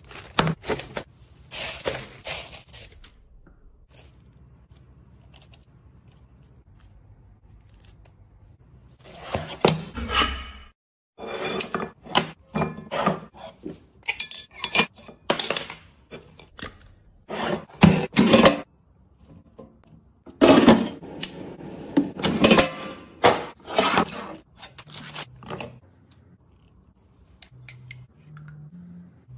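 Food-preparation sounds: a knife and spoon clinking and scraping against a bowl, a jar and a board, in many short sharp bursts with quieter gaps between.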